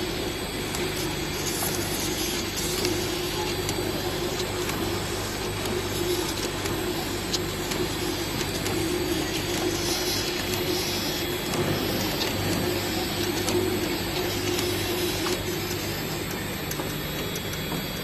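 Bottle filling, capping and labeling machinery running: a steady mechanical hum with frequent light clicks and knocks.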